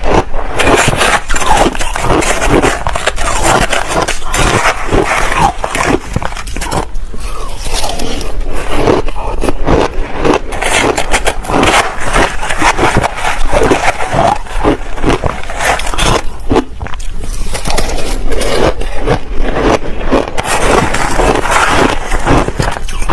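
Close-miked crunching and chewing of crushed ice topped with passion fruit pulp, a continuous run of crackly crunches, with a metal spoon scraping and digging through the ice in a plastic container.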